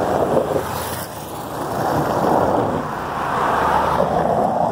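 Pickup truck driving past on a cobblestone road, its engine and tyres making a steady rumbling noise.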